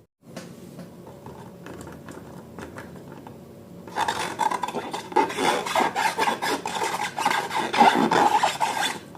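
Rubbing and scraping from hands working slime-making materials (slime or balloons). It is faint at first and becomes much louder and denser from about four seconds in.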